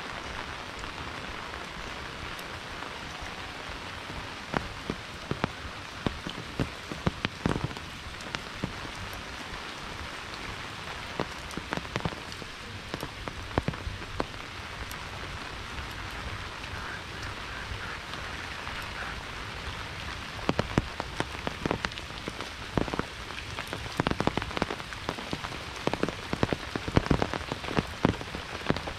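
Steady monsoon rain falling, with many sharp, irregular drop hits close by that come thicker in the second half.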